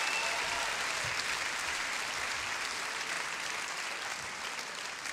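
Concert audience applauding, the applause slowly fading away.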